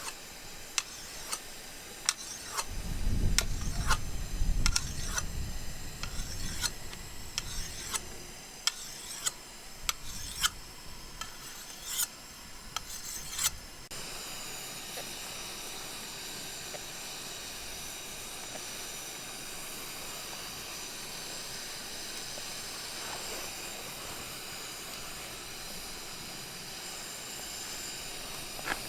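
Cutlery clicking and scraping on a plate during eating, with a low rumble around three to five seconds in. About fourteen seconds in, this gives way abruptly to a steady hiss.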